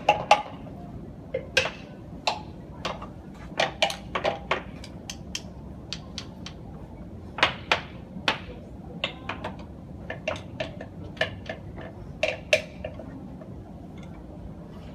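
Wooden blocks on a wall struck with wooden drumsticks in a quick, irregular drumming pattern: sharp woody knocks, some with a short pitched ring. The striking stops near the end.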